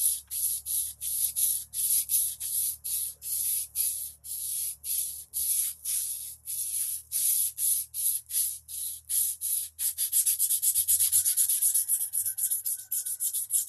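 Sandpaper on a wooden block rubbed back and forth against a hatchet's edge in quick, even scraping strokes. The strokes come about three a second, then quicken to about five a second and grow a little louder some ten seconds in.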